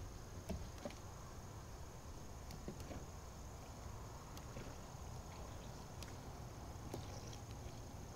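Quiet outdoor background with a faint steady high-pitched insect drone and a few light scattered clicks.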